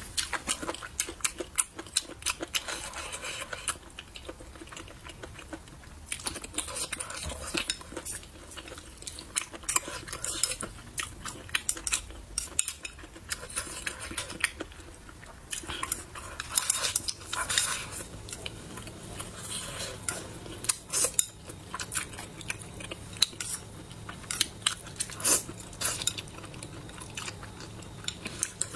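Close-up eating sounds: chopsticks clicking and scraping against a bowl, with repeated sharp clicks throughout, and chewing of mouthfuls of braised pork belly, green peppers and rice.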